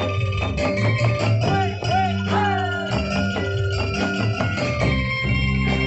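Rampak gendang ensemble: many Sundanese kendang drums struck by hand together in a fast rhythm, over music with steady held tones and a melody of sliding notes.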